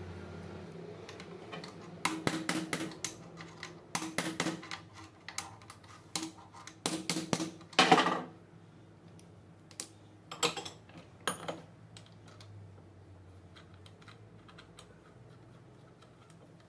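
Bursts of quick metallic clicks and taps from a screwdriver and hand tools working on a Massey Ferguson 440 tractor's starter motor field coil housing clamped in a vise, with the loudest knock just before eight seconds in. A low hum stops within the first second.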